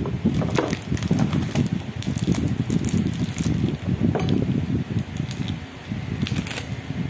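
Plastic wrapper crinkling and crackling in short bursts as a knife slits and peels it off a block of cheese, over a constant low rumble.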